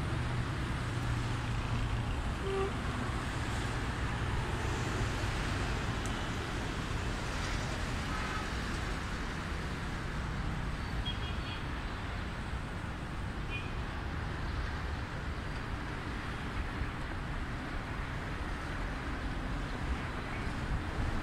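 Steady street traffic: cars and buses passing on the road below, with a low engine drone during the first few seconds.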